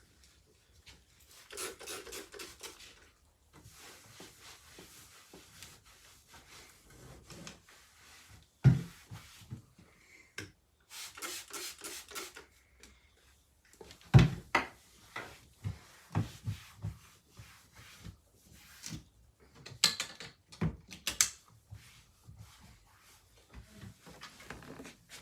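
Indoor handling noises: scattered knocks, clicks and rubbing, with two sharp thumps about nine and fourteen seconds in.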